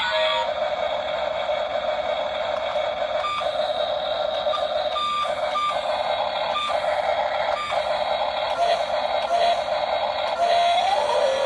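Steady whirring of a remote-control model excavator's electric motors and gears as it works, with several short high beeps in the middle and a brief rising whine near the end.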